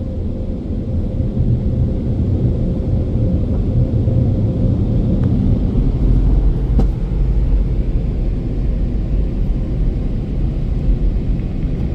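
Onboard dryer blowers of a Mark VII Aquajet GT-300 in-bay automatic car wash blowing air over the car: a loud, steady low rumble. A faint steady hum rides on it and fades out about five seconds in.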